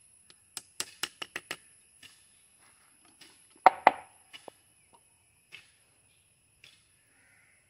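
A rubber-tapping knife working the cut in a rubber tree's bark: a quick run of about six sharp clicks, then two louder knocks about halfway through and a few faint clicks after.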